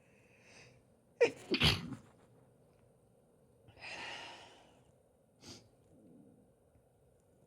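A woman sneezes once, loudly, about a second in, in two quick parts and after a short intake of breath. A softer breathy sound follows a couple of seconds later, then a short sharp breath near the end.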